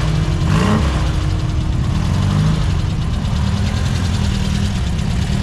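The air-cooled Volkswagen 1600 flat-four of an MP Lafer roadster running at low revs, a steady low rumble that eases off a little after about three seconds as the car moves off.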